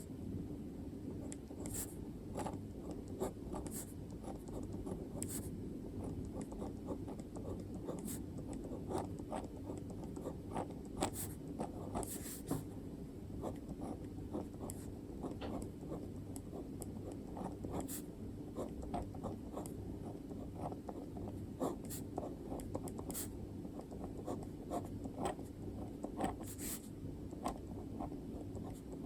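Handwriting on paper: short scratchy strokes and light taps coming in quick, irregular runs over a steady low hum.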